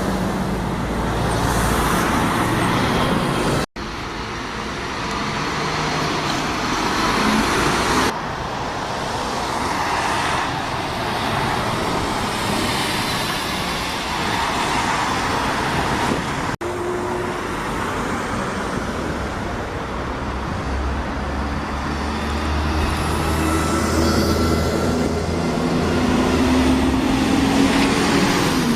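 Buses and road traffic running, heard across several short cuts. Near the end an engine note rises steadily as a vehicle pulls away.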